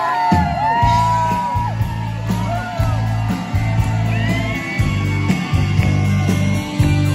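Live rock band playing: electric guitar bending lead notes over a bass line that comes in just after the start.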